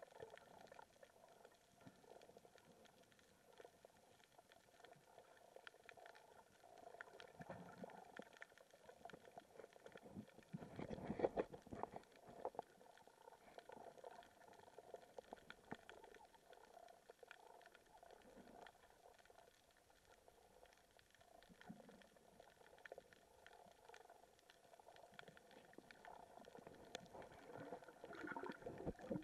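Faint, muffled underwater ambience picked up by a submerged camera, with scattered small clicks and a low rumble. About eleven seconds in there is one louder rumbling burst.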